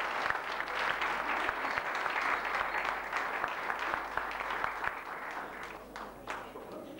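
Audience applauding: many hands clapping together, thinning out to a few scattered claps near the end.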